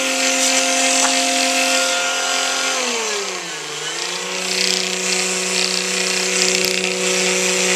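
Brushless electric motor of a homemade friction-drive e-bike running, its roller spinning the bicycle tire. It makes a steady whine over a hiss, drops in pitch about three seconds in, then holds steady at the lower speed.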